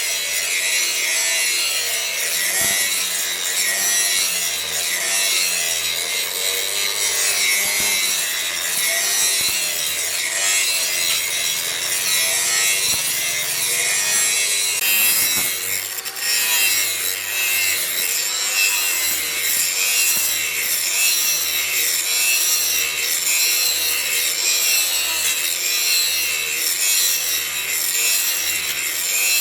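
Hand tool rasping on leaf-spring steel in steady back-and-forth strokes, about one stroke a second.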